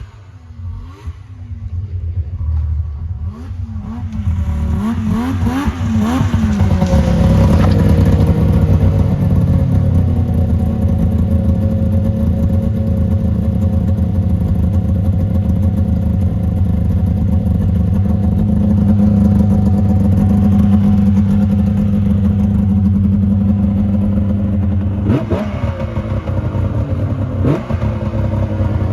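Yamaha V-Max triple-cylinder two-stroke snowmobile engine running. It revs up over a few seconds, settles into a steady run, then gives two quick throttle blips near the end.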